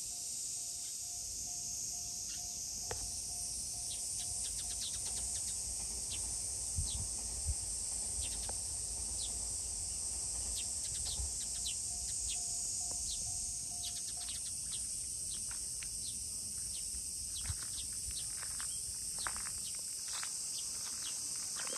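A dense, steady high-pitched chorus of summer insects, with short bird chirps scattered throughout and a pulsing tone that stops about two-thirds of the way in. A low rumble and a few soft bumps sit underneath.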